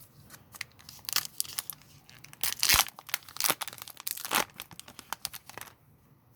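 Foil Pokémon booster pack wrapper being crinkled and torn open, a run of crackling and tearing that is loudest midway and stops shortly before the end.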